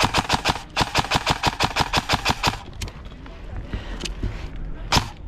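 Airsoft rifle firing rapid strings of shots, about nine a second: a short string, a brief pause, then a string lasting about two seconds. After that come a few scattered single shots, with one sharp crack near the end.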